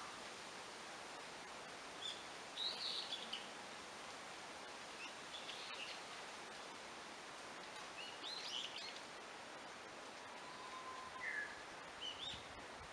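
Songbirds chirping and singing in short phrases every few seconds over a steady background hiss of forest ambience.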